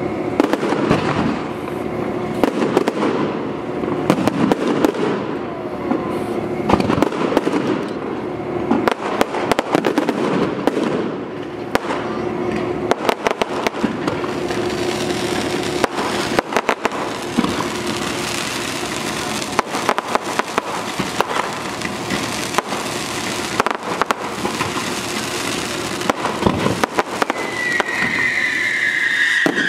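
Fireworks display: rapid bangs of aerial shells over dense crackling stars and fountains. Near the end a high whistle sets in, falling in pitch.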